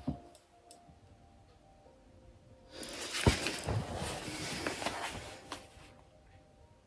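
Pages of a paperback book riffled and turned by hand, a papery rustle starting a little under three seconds in and lasting about three seconds, with one sharp tap partway through. Soft background music underneath.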